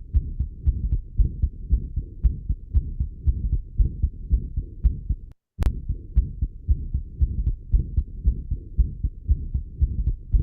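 Recorded stethoscope heart sounds from a patient with an atrial septal defect: a systolic murmur at the base of the heart that is not very intense, with a loud second heart sound, a flow murmur from the extra blood crossing the pulmonary valve. The beats repeat steadily, with a brief break and a click about halfway.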